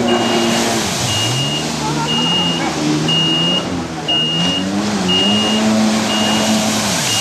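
Jet ski engine running, its pitch falling and rising with the throttle, with a high beep repeating about once a second.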